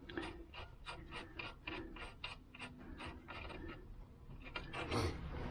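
Hand ratchet wrench clicking in a steady run, about four to five clicks a second, while a nut is run down; the clicks stop near the end.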